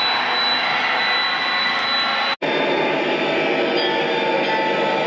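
O scale MTH model diesel locomotive running, its onboard speaker playing a Proto-Sound 3.0 sound file taken from an EMD SD40-2, a steady diesel engine sound together with wheel noise on the track. The sound cuts out for an instant about halfway through and then comes back.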